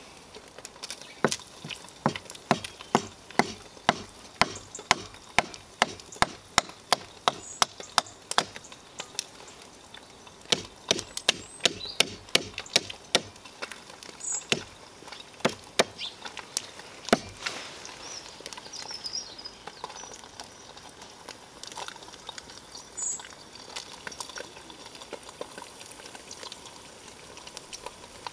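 Large knife chopping small sticks of wood on a log block: a run of sharp knocks, about two a second, that stops a little past halfway. Underneath, and alone after the chopping stops, an egg sizzles in hot olive oil in a frying pan.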